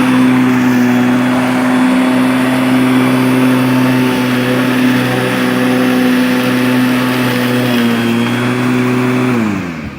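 Corded electric lawnmower's motor running at a steady pitch, then switched off near the end, its pitch falling as it spins down.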